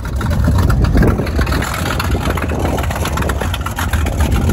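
Speedboat engine running: a deep, steady rumble, with a rush of wind and water noise over it.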